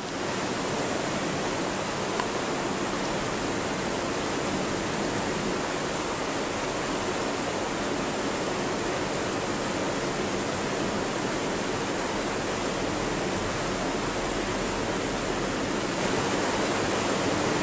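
Steady rushing of falling water, an even hiss and roar with no pattern, growing a little louder near the end.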